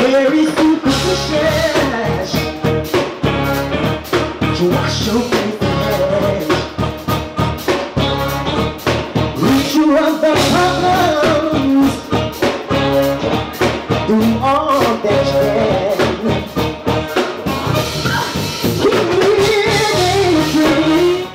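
Live band playing with a steady drum-kit beat under keyboard and saxophone, with a singer on microphone.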